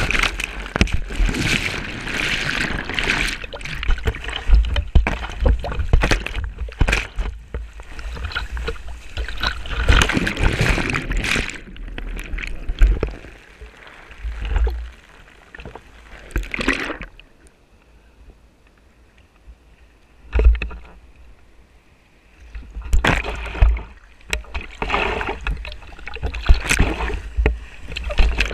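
Sea water splashing and rushing around an action camera on a paddle shaft in the surf, with wind and water knocking and thumping on the microphone. Past the middle it goes much quieter for a few seconds, then the splashing and rushing pick up again.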